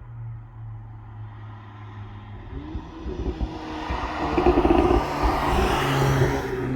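VW Polo GTI's turbocharged 2.0-litre four-cylinder, fitted with a Milltek downpipe and cat-back exhaust and an aftermarket intake, idling and then revving up over a few seconds, falling back to idle near the end.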